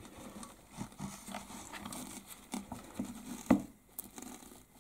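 Handling noise of a loudspeaker's bass mid-range driver being turned over in the hands: light rustling of the fibre wadding glued to its back and small knocks of the frame, with one sharper knock about three and a half seconds in.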